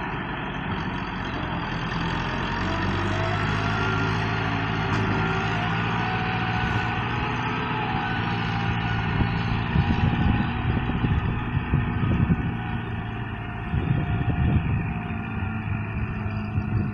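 Massey Ferguson tractor's diesel engine running steadily while pulling a trailer loaded with sand, with uneven rumbling thumps in the second half.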